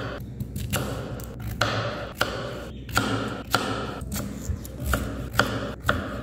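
Kitchen knife cutting peeled new potatoes into large chunks on a plastic cutting board. The blade knocks sharply on the board about two times a second, unevenly spaced.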